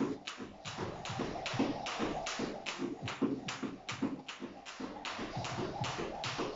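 Skipping rope hitting a tiled floor in a steady rhythm, about three taps a second, with the jumper's trainers landing on the tiles.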